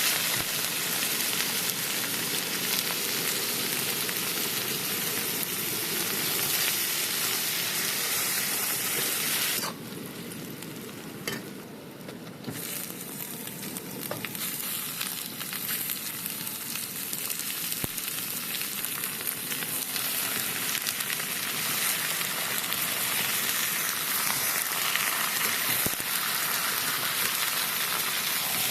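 Food sizzling in hot oil in a cooking pan, a steady frying hiss that quietens for a couple of seconds about ten seconds in, then picks back up.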